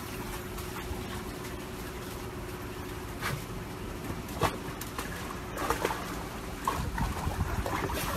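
Water trickling steadily from a garden hose into a plastic tub, with splashing as a husky paws at the water, starting about three seconds in and growing busier toward the end.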